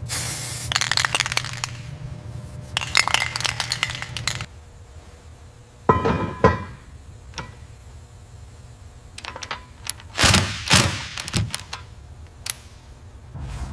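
Workshop handling sounds: hard clinks and knocks of parts being set down or handled. Two ringing clinks come about six seconds in and a cluster of knocks a few seconds later, over a steady low hum.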